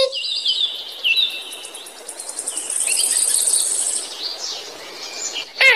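Forest ambience of birds and insects: short high whistled bird calls in the first second or so, then a fast high trill of chirps in the middle, over a soft hiss.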